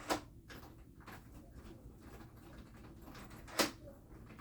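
Two sharp mechanical clicks from the deadbolt of a keyless smart door lock being worked by key: one at the start and a louder one about three and a half seconds later, with faint handling noise between them.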